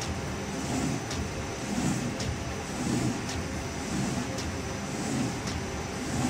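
QZ1300 roll-to-sheet paper cutting machine running: a steady mechanical drone with a short, sharp stroke about once a second as the cross-cutter chops the paper web into sheets.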